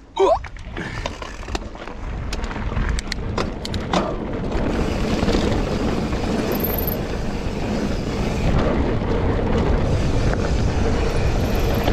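Mountain bike riding fast downhill on a pebbly trail: wind rushing over a GoPro microphone and tyres rolling on the stones, with sharp clicks and knocks of the bike rattling over bumps in the first few seconds. A brief loud pitched sound comes right at the start.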